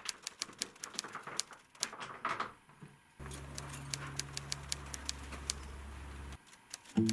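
A bunch of keys jangling and clicking in short, irregular bursts at a front-door lock. A low, steady hum comes in about three seconds in and stops shortly before the end.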